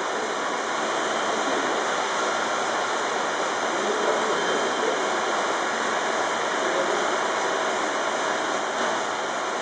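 Steady rushing hiss with no clear beat as the 1878 Godard & Massey compound rotative beam engine turns over.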